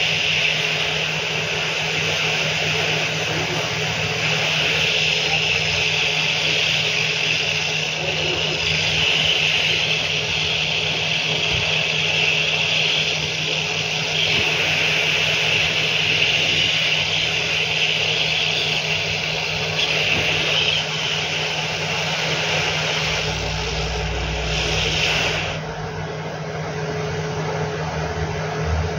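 Hot air rework station blowing at 320 °C to solder a replacement LCD connector onto a phone mainboard: a steady hiss over a low hum. The hiss cuts off about 25 seconds in.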